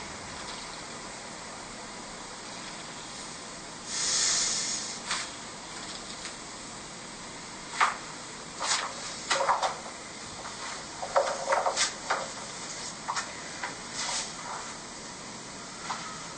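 Steady background hiss, with a brief rush of noise about four seconds in and scattered light clicks and rustles through the second half.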